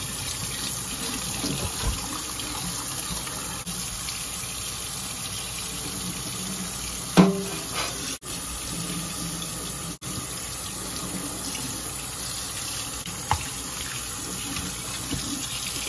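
Kitchen faucet running steadily into a stainless steel sink as a whole salmon is rinsed and cleaned under the stream. A single sharp knock comes about seven seconds in, with a smaller click later.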